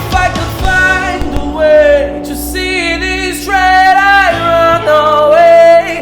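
A singer holding long, wavering wordless notes over a live rock band accompaniment.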